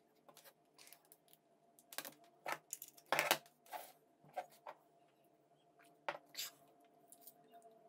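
Faint, scattered clicks and light knocks of things being handled on a desk: a phone and a USB charging cable being plugged into a homemade M4 magazine power bank. A faint steady hum runs underneath.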